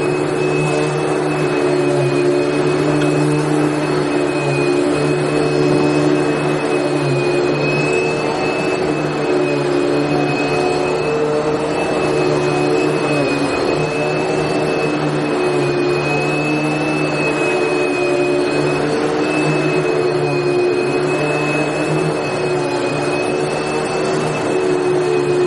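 Vacuum cleaner running steadily, its motor giving a continuous whirring hiss with a high whine held on one pitch.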